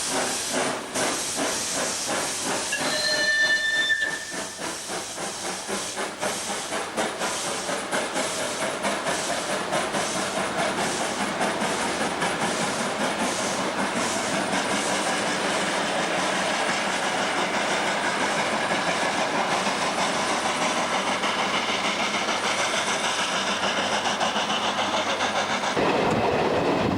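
Steam locomotive pulling away: steam hissing, a short whistle blast about three seconds in, then exhaust beats that come faster and faster as the train gathers speed.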